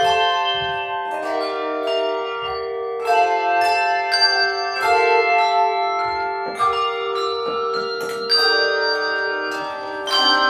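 Handbell choir playing a tune: bells rung one after another and in chords, each note ringing on under the next.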